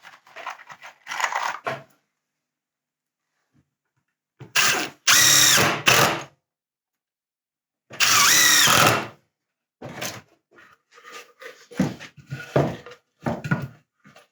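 Cordless impact driver driving screws into wood in two loud bursts, about four and eight seconds in, its motor whine rising and falling. Quieter knocks and handling of the wood between.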